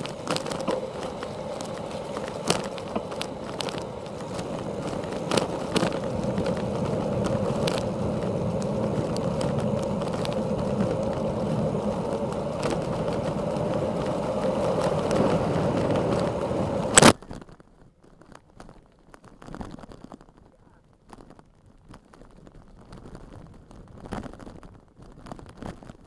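Bicycle running fast downhill on a rough road: a steady rush of wind and tyre noise with frequent knocks and rattles from bumps. It cuts off abruptly with a loud click about two-thirds of the way through, after which only faint rattles and ticks remain.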